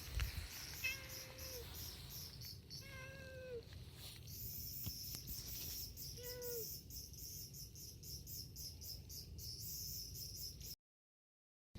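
A cat meowing three times: short, even-pitched meows, each about half a second long and dipping at the end. The first comes about a second in, the next two around three and six seconds in.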